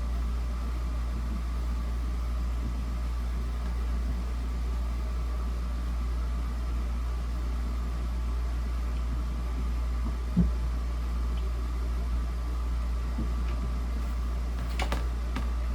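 A steady low mechanical hum with a faint higher whine, broken by a single knock about ten seconds in and a few light clicks near the end, from parts and a screwdriver being handled while a small fan is put back together.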